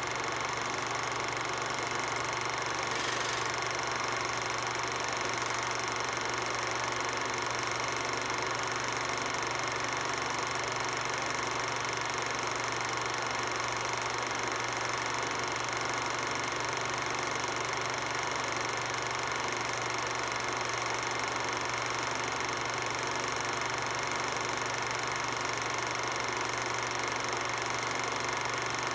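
A steady machine hum with several constant tones over a hiss, unchanging throughout.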